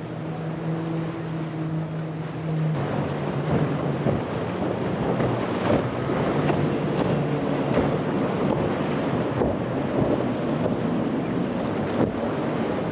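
Outboard engines on a fast-running boat give a steady drone, then about three seconds in the sound switches to a Nor-Tech center console with quad Mercury 400R outboards. There the hull spray and wind on the microphone are as loud as the engines' fainter drone.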